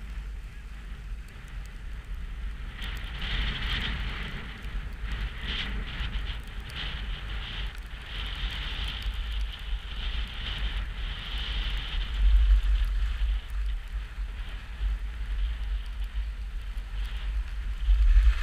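Wind buffeting the microphone during a ski descent, with skis hissing and scraping over the snow, strongest from about three seconds in.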